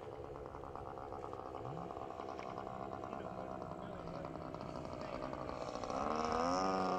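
Cub airplane's engine droning as it flies overhead, steady at first, then louder with its pitch rising about six seconds in.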